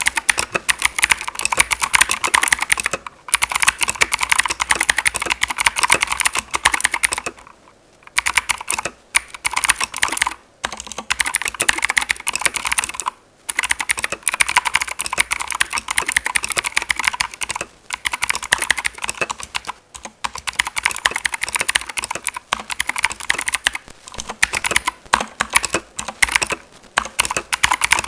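Keychron K2 V2 mechanical keyboard with clicky blue switches being typed on fast and steadily, a dense run of sharp clicks with a few brief pauses.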